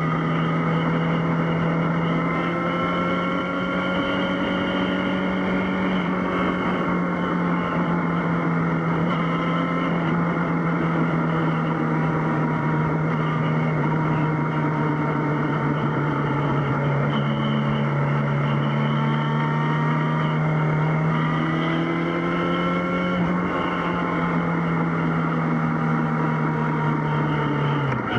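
Yamaha XJ6's inline-four engine running steadily at cruising revs while riding, its pitch holding nearly level with slow small rises and falls, and dropping briefly at the very end.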